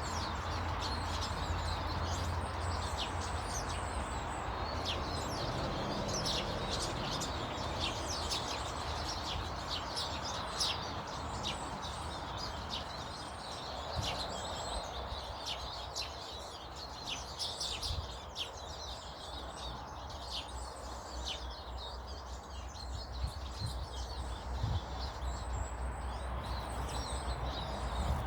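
Small birds chirping, with many short, high calls scattered throughout and no single song repeated. Underneath is a steady, low background noise.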